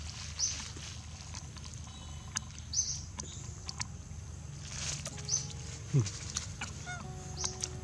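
Macaques moving over grass and dry leaves close by: scattered rustles and light clicks, with a few brief high chirps and a short low falling sound about six seconds in.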